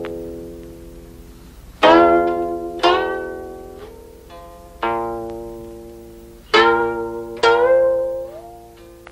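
Background music on a plucked string instrument: about five slow notes and chords, each struck and left to ring and die away. A couple of notes are bent upward in pitch as they sound.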